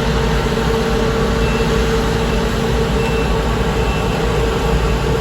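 Combine harvester running steadily: a constant mechanical drone with a steady hum riding over a low rumble.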